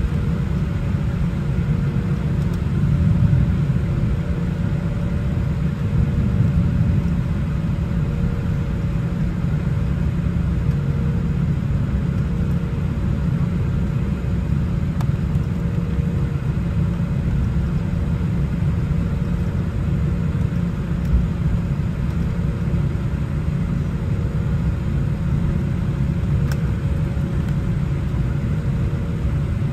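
Steady low rumble of a Boeing 787-8 Dreamliner heard from inside the passenger cabin: engine and airflow noise, with a faint steady hum on top.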